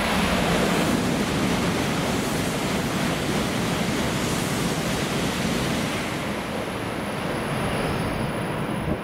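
N700S Shinkansen train passing through a station at speed, a loud steady rush of wheel and air noise. The rush eases slightly near the end as the train goes away.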